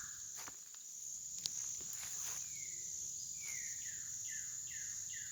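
Northern cardinal singing a run of quick downslurred whistles, starting about two seconds in and repeating about three times a second, over a steady high insect drone.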